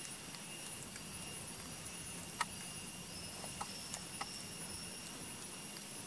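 Steady outdoor forest ambience: a constant high insect drone, with a few short sharp clicks, the loudest about two and a half seconds in.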